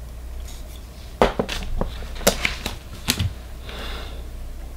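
Sharp clicks and taps of small plastic Mini 4WD parts being handled and set down on a cutting mat, about seven in quick succession from about a second in, then a short rustle, over a steady low hum.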